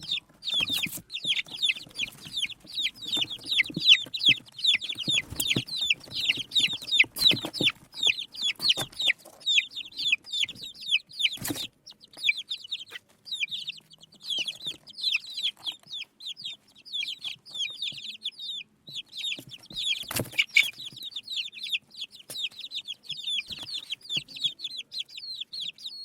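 Baby chicks peeping constantly: many short, high, downward-sliding chirps, several a second, with a few sharp knocks now and then.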